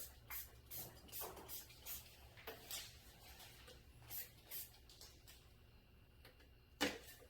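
Short, faint hissing squirts of a spray bottle misting accelerator onto the adhesive along a patch seam, about ten at irregular intervals, the loudest near the end.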